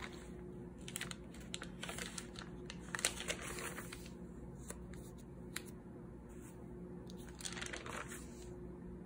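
Paper pages of a spiral-bound notebook being turned by hand, rustling in two bouts: about a second in, and again near the end.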